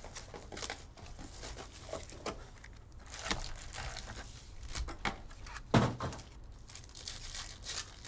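Plastic shrink wrap crinkling and tearing as a sealed trading-card box is unwrapped and opened, then a card pack's wrapper is torn open, with many small crackles and one louder snap about two-thirds of the way through.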